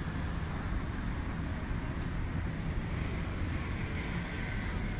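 Wind buffeting the microphone of a moving phone camera: a steady, flickering low rumble with a light hiss above it.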